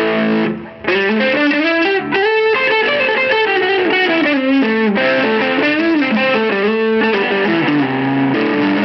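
Electric guitar played through an ALV Tubelyzer overdrive pedal (a Tube Screamer TS808/TS9 clone) on the neck humbucker, a DiMarzio DP156: a chord rings briefly, then after a short break a continuous melodic line of single notes and chords with some bent notes.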